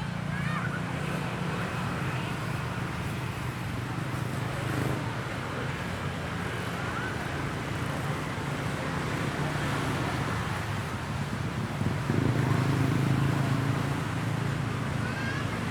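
Steady hum of road traffic with scattered distant voices, swelling for a couple of seconds about twelve seconds in.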